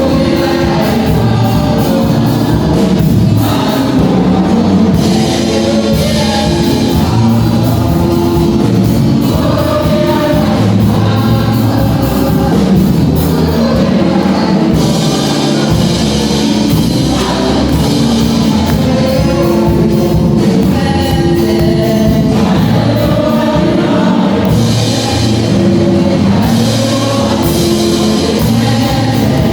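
Gospel music with a choir singing over instrumental backing, continuous and loud.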